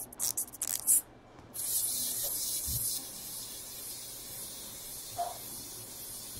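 A few light clicks in the first second or so, then a steady hiss that drops to a fainter level about halfway through.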